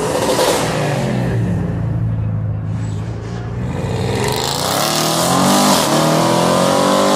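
A car engine running at a low, steady note, then revving hard as an Audi RS6 Avant accelerates away. The pitch climbs, drops at a gear change about five seconds in, and climbs again.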